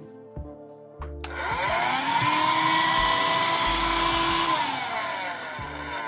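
Philips 4.8 V Wet & Dry cordless handheld vacuum cleaner, already converted to lithium-ion power, switched on about a second in: its motor whines up to speed with a rush of air, runs steadily, then winds down in pitch and fades near the end as it is switched off.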